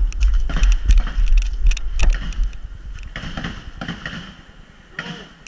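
Semi-automatic pistols firing a quick string of shots in the first two seconds or so, over a low wind rumble on the camera's microphone, followed by softer rustling noise.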